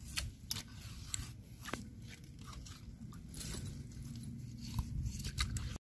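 Faint, scattered crunches and clicks over a low rumble, from movement on wet mud and stones, cutting off abruptly near the end.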